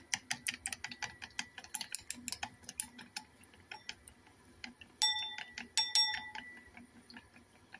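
Chopsticks beating a raw egg in a ceramic bowl: fast, even clicking of the sticks against the bowl's side. Two harder strikes about five and six seconds in make the bowl ring briefly.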